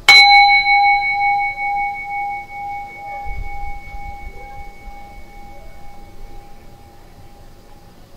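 A meditation bell struck once, ringing with a clear tone and higher overtones that slowly fade away over about seven seconds, the main tone wavering slightly as it dies. It rings to mark the start of a meditation.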